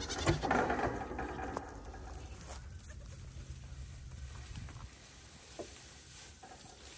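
Loose hay rustling with light patter as goats crowd a hay trough. It is loudest in the first two seconds, then fades to a low, even rustle.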